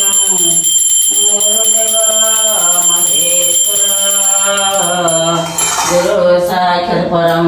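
Devotional song with a sung melody of held notes, with a steady high bell ringing along with it that stops about five and a half seconds in.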